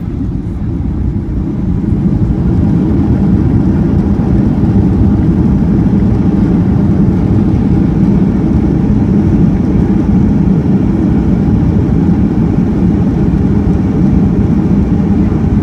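A Boeing 737-800's CFM56-7B engines and airframe heard from inside the cabin over the wing during the landing roll. It is a loud, steady low rumble that swells about two seconds in and then holds.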